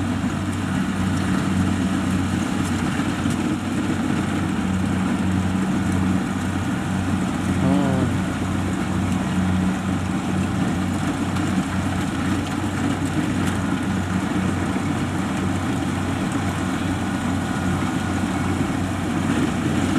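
Kubota DC70 combine harvester's diesel engine running with a steady drone, the machine working through sticky, muddy paddy soil.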